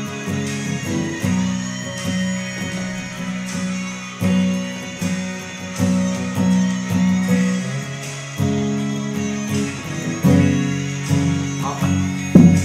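Music led by guitar, its chords changing roughly once a second, with a loud accented stroke near the end.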